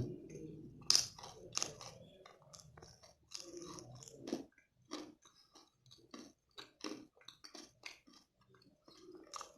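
Close-up chewing of hard, crunchy peanut candy (kadalai mittai), with quick irregular crunches and cracks as it breaks between the teeth; the sharpest crunch comes about a second in.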